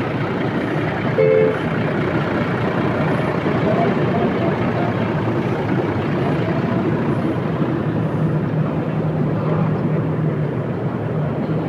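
Hino RG diesel coach engine running as the bus drives across the terminal yard towards the camera; its low, steady drone grows stronger through the second half. Over steady background noise, with a short tone about a second in.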